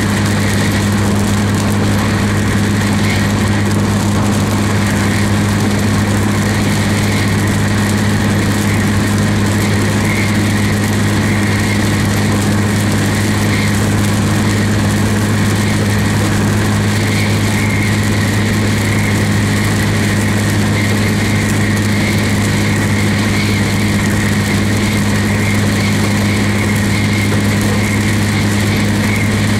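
Steady low drone of a vehicle driving on a wet road, heard from inside the cab, over an even hiss of road and rain noise.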